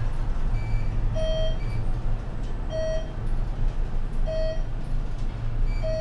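Thyssenkrupp glass traction elevator car riding with a steady low hum, while a short electronic beep sounds four times, about every second and a half, starting about a second in.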